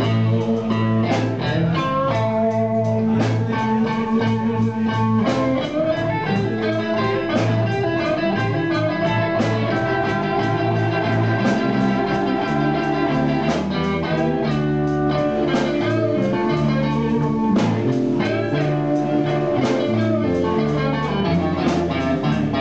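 Live blues band playing an instrumental passage: electric guitar lines over bass and drums.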